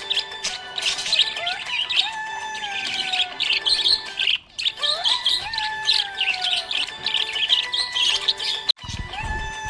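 A group of small pet parrots chirping busily, with quick high chirps packed close together and a few longer gliding notes beneath. There is a brief lull about four seconds in and an abrupt cut near the end.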